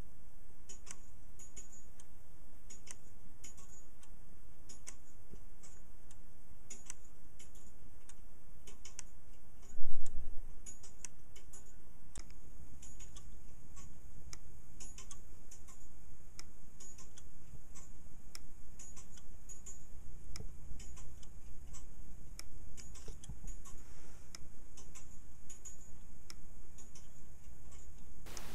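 Steady clockwork ticking from a pendulum-driven Hipps clock movement, its copper-wire pawl clicking over the teeth of a hand-cut ratchet wheel, with one dull thump about ten seconds in.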